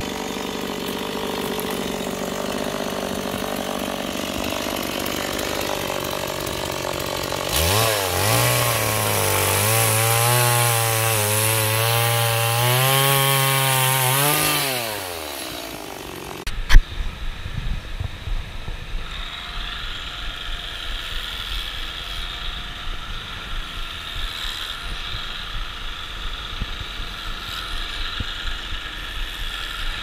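STIHL gasoline chainsaw running at idle, then revving up and cutting through a log for about seven seconds before dropping back. After a sharp knock, a quieter steady hum of electric cattle clippers follows.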